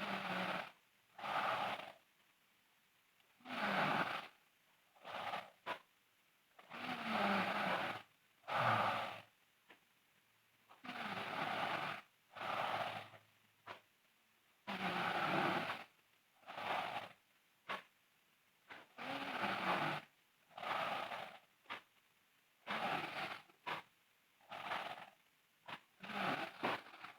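A girl snoring loudly in her sleep: a longer, rough snore followed by a shorter one, repeating about every four seconds.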